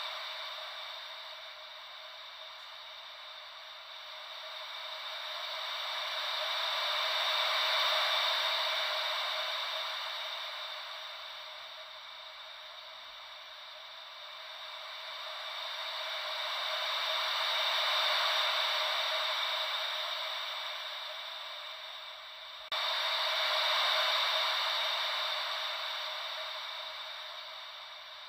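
Gentle ocean-wave white noise: a soft hiss with no low rumble, swelling and ebbing slowly like waves washing in, about every ten seconds. About 23 seconds in the level jumps up abruptly at an edit in the recording.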